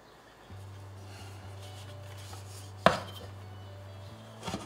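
Stainless steel Thermomix mixing bowl knocking against the kitchen counter: one sharp clank about three seconds in and a softer knock near the end, over a low steady hum.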